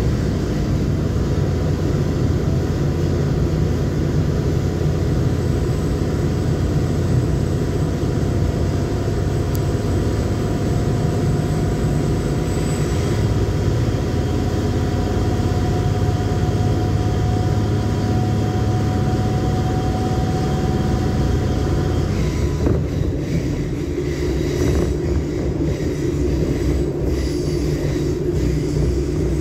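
Commuter train running at speed, heard from inside the passenger car: a steady low rumble of wheels on rail with a faint whine over it. About three-quarters of the way through there is a sharp knock, and the rumble changes in tone.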